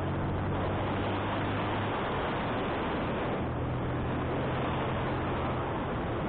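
Wind rushing over the microphone on a moving motorcycle, over the low steady hum of its engine; the engine hum drops away about two seconds in and comes back a second and a half later.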